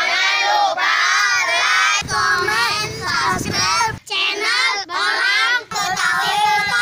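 Groups of children calling out a phrase together in unison, loud and excited, in short clips spliced one after another with abrupt cuts every second or two.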